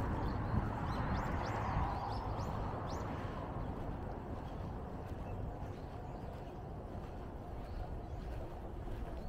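Outdoor street ambience: a low rush, likely a passing vehicle, fades over the first few seconds while a bird chirps several times in short calls during the first three seconds.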